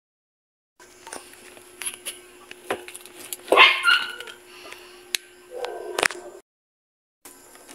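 Clicks and light knocks of stand-fan parts being handled and fitted onto the plastic base. A little under halfway through comes one short, loud, high cry that sweeps up and then falls away. The sound cuts out completely twice.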